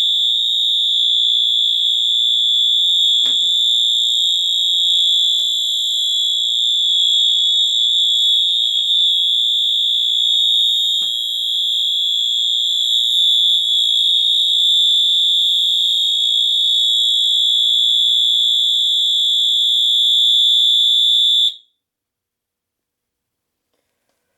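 Fire alarm sounding a continuous, steady high-pitched tone that cuts off suddenly near the end, as the alarm is silenced.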